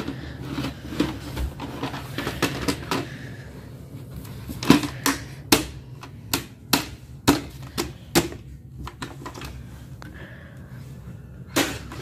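An irregular run of sharp clicks and knocks from small hard objects being handled or tapped. The loudest come in a cluster between about five and eight seconds in, some with a short dull thud.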